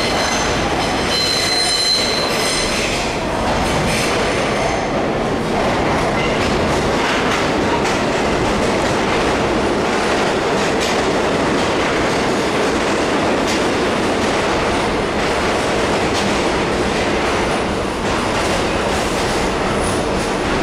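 New York City subway train coming into an underground station: a high, many-toned squeal in the first few seconds, then the loud, steady rumble and rattle of the cars running along the platform, with repeated clacks.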